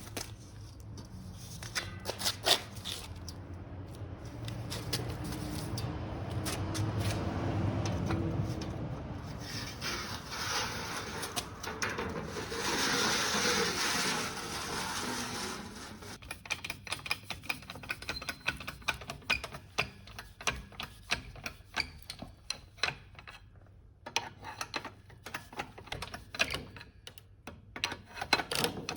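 A hand tool being worked: a stretch of rubbing and scraping, then rapid irregular clicking and clattering.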